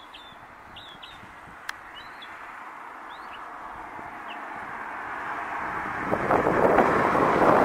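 A vehicle passing, its rushing tyre noise swelling steadily and loudest near the end. A few short, high bird chirps sound in the first seconds.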